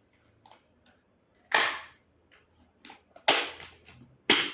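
Adhesive tape being pulled off the wrapped envelopes of an RO membrane element: three sharp ripping pulls, the first about a second and a half in and the last near the end, with faint clicks of handling between them.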